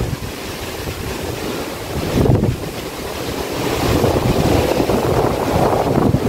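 Wind buffeting the microphone outdoors, a loud gusty rumble that swells and eases.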